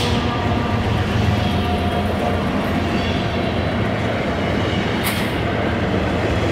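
Model railway locomotives and double-stack freight cars running past on the track: a steady low hum with the rolling of wheels on rail, and a short click about five seconds in.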